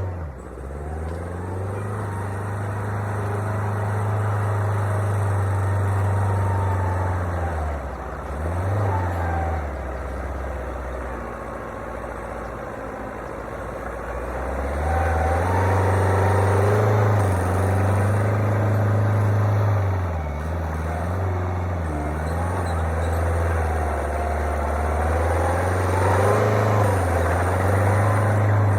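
Heavy construction machine's diesel engine working, its revs rising and falling with the load; the engine note drops for a few seconds in the middle and climbs again about halfway through.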